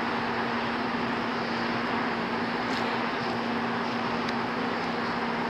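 Boeing 777-300ER jet engines at takeoff power during the takeoff roll and rotation, heard from a distance as a steady, even roar with a steady low hum beneath it.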